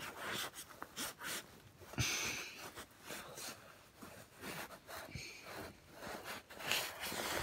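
Close handling noise from cleaning around a tractor gearbox hole by hand: irregular rustling, scraping and clicks, with a sharp knock about two seconds in. Breathing close to the microphone.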